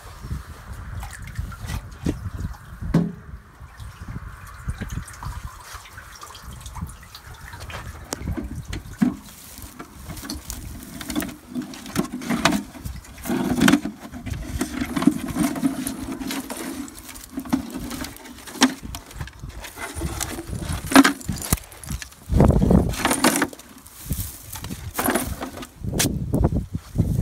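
Water dripping and splashing in a well as a rusty metal bucket is hauled up on a magnet-fishing rope, with scattered knocks and scrapes of the bucket and rope being handled.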